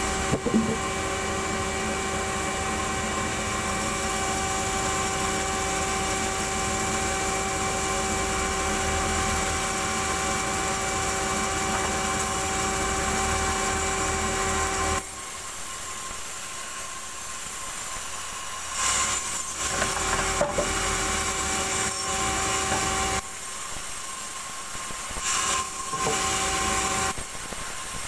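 Log band sawmill running, its blade sawing through timber for about the first half. The sound drops suddenly to a lighter running hum, with a few sharp wooden knocks, and the louder sawing comes back briefly near the end.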